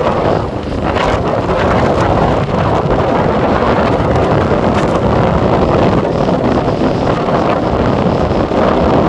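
Strong wind buffeting the microphone in a loud, steady rumble, with waves washing on the beach beneath it.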